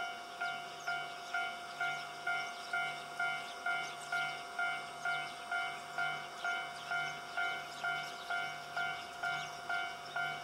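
Japanese railway level-crossing warning bell ringing steadily at about two strikes a second, the signal that a train is approaching the crossing.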